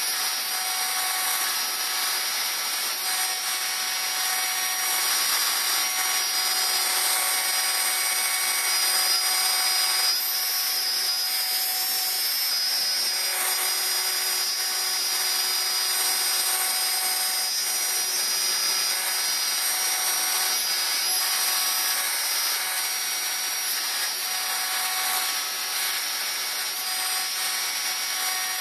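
Router spindle on a servo-driven CNC router running steadily, its end mill milling a shallow logo into plywood. A continuous high-pitched whine mixes with the rasp of the bit cutting the wood.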